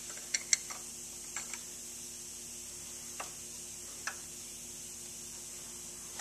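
Light metallic clicks and taps of a connecting-rod bearing cap and its shell being worked by hand onto a crankshaft journal of a 1939 Farmall F-20 engine. A quick cluster of clicks comes in the first second and a half, then single taps about three and four seconds in.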